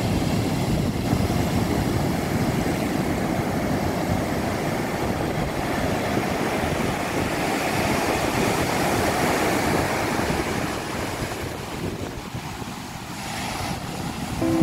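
Ocean waves breaking on a sandy beach and washing up the shore: a steady rushing noise that eases a couple of seconds before the end, then builds again as another wave breaks.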